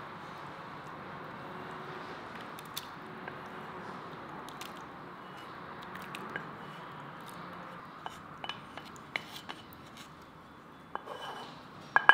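Wooden spatula scraping fried onions out of a frying pan into a bowl of batter, with scattered clicks and taps of spatula, pan and wire whisk against the bowl, the loudest knocks near the end. A faint steady hiss lies underneath.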